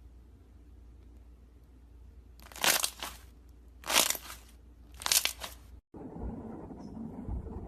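Crunchy slime being squeezed: three loud crunches about a second apart, followed after a short cut by softer, steadier crackling.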